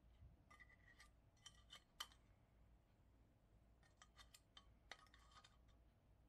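Faint metallic clicks and scrapes of metal tweezers working inside the burner cup of a Coleman 508A petrol stove's burner box, in two short clusters near the start and about four seconds in.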